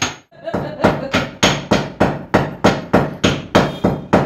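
Pestle pounding cardamom in a small mortar: sharp, even strikes about three a second, after a brief pause near the start.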